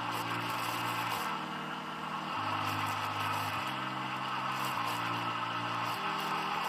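Electric kitchen blender running steadily under background music, then cutting off suddenly near the end.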